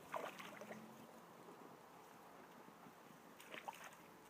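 Near silence: faint riverside ambience, a low steady hiss with a few faint short sounds near the start and about three and a half seconds in.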